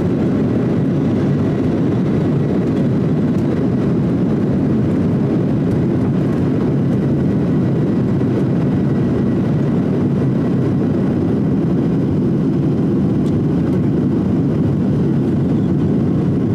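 Steady low drone of a jet airliner heard from inside the cabin: the engines and rushing air make an even, unbroken noise.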